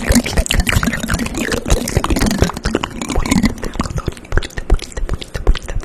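Spoon tapping and scraping against a microphone up close: a rapid, irregular run of sharp, wet-sounding clicks and taps.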